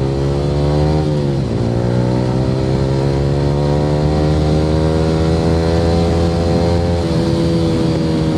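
Yamaha R15 V3's single-cylinder engine running through an aftermarket Akrapovic R9 exhaust as the bike is ridden: the revs climb, drop sharply about a second in, then climb slowly again, with a small dip near the end.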